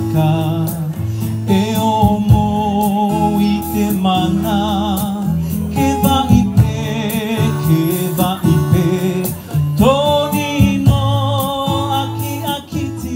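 Background music: a singing voice with vibrato over a steady instrumental backing, beginning to fade out near the end.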